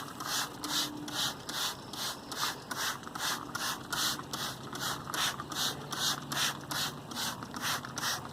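Trigger spray bottle of citrus grill cleaner squeezed over and over, a hissing squirt about three times a second, wetting the grimy inside of a gas grill's cookbox.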